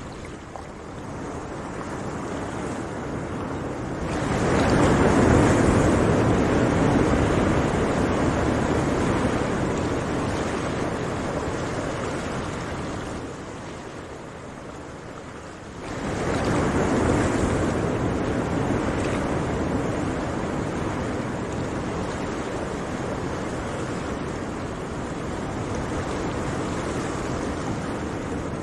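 Sea waves breaking on the shore: two big breakers crash about four and sixteen seconds in, each surge fading slowly into a steady wash.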